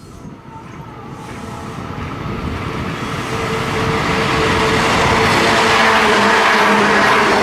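N-gauge model freight train running along the layout track, its rolling wheel noise growing steadily louder over about five seconds as it approaches, with a steady motor hum underneath.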